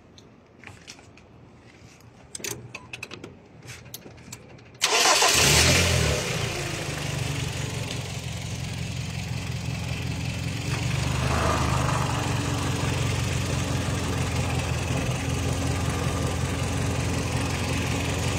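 A few light clicks and handling sounds, then about five seconds in a car engine starts with a short crank and settles into a steady idle, a little louder from about eleven seconds in.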